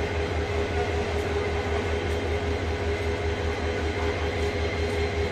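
Train running: a steady rumble with a held tone and an even, repeating low throb.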